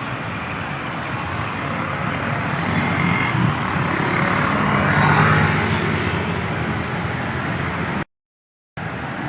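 Road traffic at a crossroads: engines and tyres of passing vehicles, with one vehicle passing loudest about five seconds in. The sound cuts out completely for under a second near the end.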